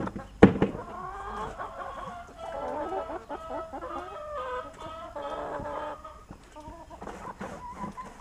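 A flock of domestic hens clucking and calling, many short calls overlapping. A single sharp knock sounds about half a second in.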